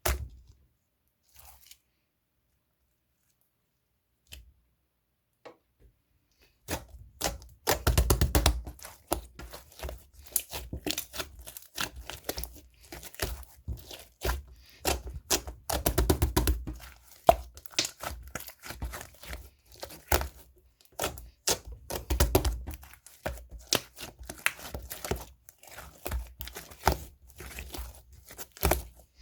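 Green macaron slime being pressed, stretched and squished by hand: a dense, irregular run of sticky crackles and pops with soft thumps that starts about seven seconds in, after a nearly quiet stretch with a few faint clicks.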